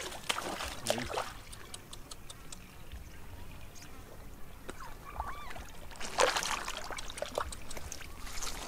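Shallow muddy water splashing and trickling as it is scooped and poured with a plastic basin, in short bursts about a second in and again around six seconds in.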